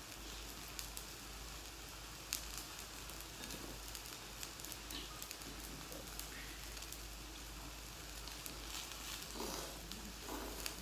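Hot pot simmering on a tabletop burner, a steady hiss, with scattered light clicks of chopsticks and dishes and eating sounds.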